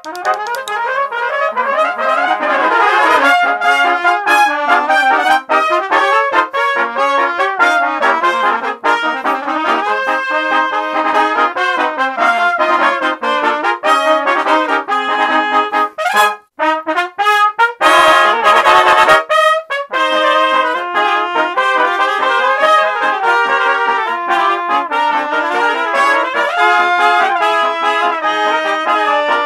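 Several overdubbed trumpet parts, all played by one trumpeter, playing a cheerful brass piece together in harmony. The music breaks off for a moment about sixteen seconds in and then goes on.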